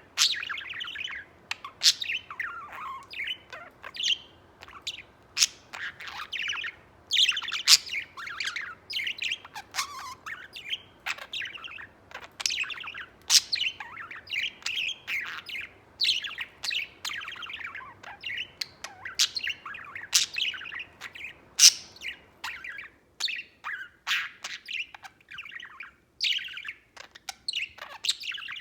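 Budgerigar warbling and chattering: a near-continuous run of quick chirps, squeaks and clicks, with only brief pauses.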